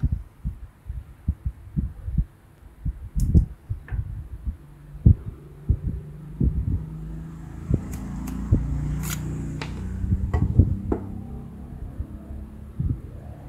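Handling noise from a vintage Leitz flash unit being twisted and pulled apart by hand: irregular low thumps and knocks, with a few sharp metal clicks, most of them about eight to nine seconds in. A low hum runs through the middle part.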